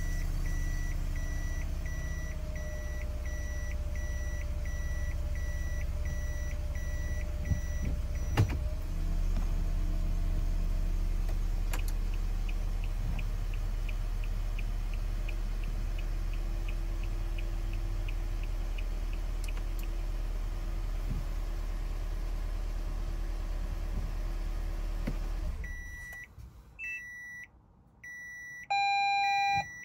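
In a Toyota Esquire cabin, the reverse-gear warning buzzer beeps about twice a second over the idling engine. About eight seconds in, the shifter clunks into Park, then the turn-signal relay ticks steadily with the hazard lights flashing. Near the end the engine shuts off and a few electronic chimes sound.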